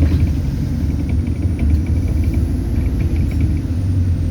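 ADL Enviro400 Hybrid double-decker bus on the move, heard from inside: a steady low drivetrain rumble with a faint high turbo whistle that rises slowly and falls back, and light rattles.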